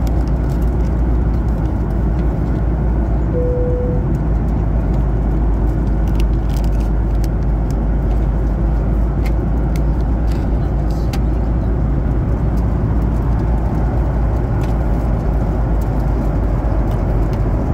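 Steady in-flight cabin noise of a Boeing 737-800: engine and airflow rumble, heaviest in the deep low end. A brief single tone sounds about three seconds in, with a few faint clicks.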